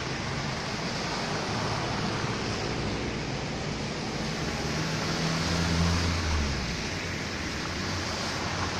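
Cars driving through standing water on a flooded street: a steady hiss and splash of tyres through the water, with one car's engine growing louder around the middle and then fading.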